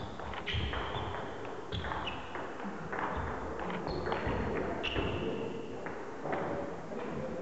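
Table tennis rally: the celluloid ball clicking off bats and table in quick succession, with short high squeaks between some of the hits, echoing in a large hall.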